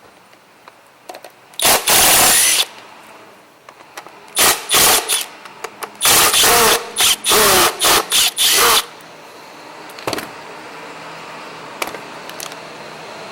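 Recoil starter of an Echo ES250 two-stroke leaf blower being yanked repeatedly, about eight short pulls in three groups, the later ones in quick succession. The engine does not settle into running.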